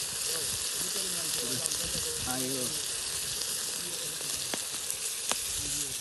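Steady hiss of a steaming pot heating over an open wood fire, with a few sharp crackles from the burning wood.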